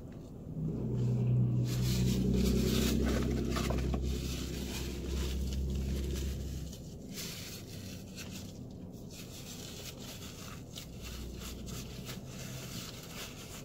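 A vehicle going by, its low engine rumble and tyre noise swelling for about six seconds and then fading. Softer chewing and napkin rustling follow.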